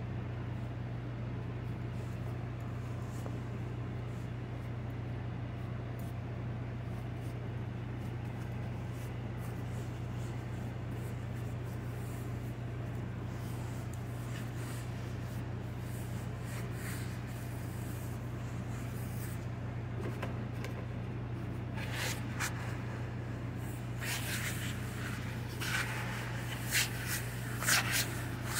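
Soft dough being folded and worked by hand on a marble slab over a steady low hum. Near the end a plastic bench scraper scrapes and taps against the marble several times.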